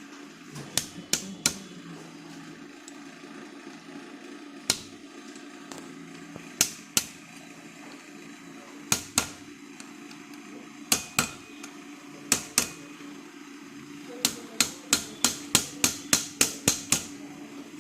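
Sharp hammer taps on an AC compressor's clutch assembly, seating the field coil and its lock ring. Single and paired strikes a few seconds apart, then a quick run of about a dozen taps near the end, over a steady low hum.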